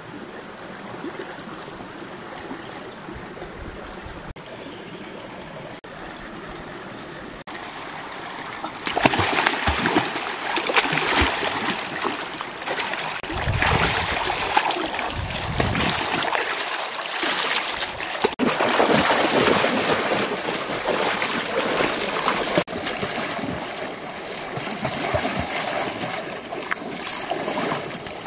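Shallow stream running steadily, then from about nine seconds in, loud continuous splashing as people crouch and wade in the water, churning it with their hands.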